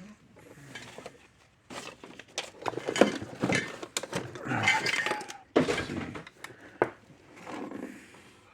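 Tools and small hard objects clinking, knocking and scraping on a workbench as someone rummages through them, a busy run of clatter through the middle.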